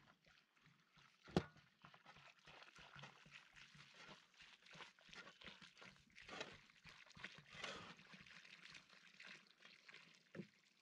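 Water pouring from an orange plastic container onto dry soil, faint and splashing, swelling louder midway. One sharp knock about a second in, with small scattered clicks.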